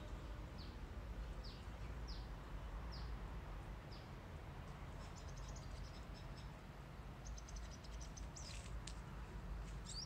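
Purple sunbird calling: a series of five sharp high notes, each falling in pitch, about one every 0.7 seconds, then from about halfway two short runs of rapid high ticking notes, over a low background rumble.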